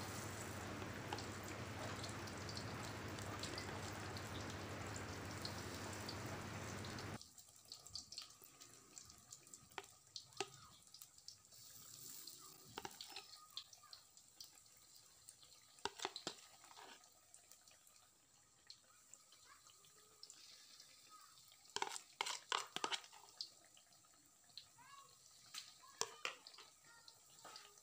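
Battered tempe deep-frying in hot oil in a wok. A dense, steady sizzle cuts off abruptly about seven seconds in, leaving a quieter sizzle with scattered crackles and pops.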